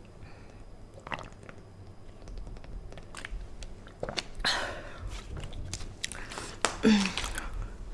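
A person chewing and biting food close to the microphone, with scattered wet mouth clicks and smacks and one longer noisy smack about four and a half seconds in.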